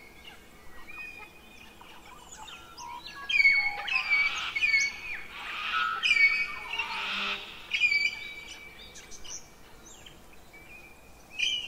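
Songbirds singing, many short whistled notes and trills repeating over and over, with a brief papery rustle of book pages being turned around the middle.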